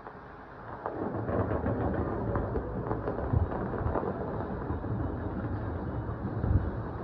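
Fireworks display: a steady barrage of shells bursting together as a continuous rumble. The loudest booms come about a second and a half, three and a half and six and a half seconds in.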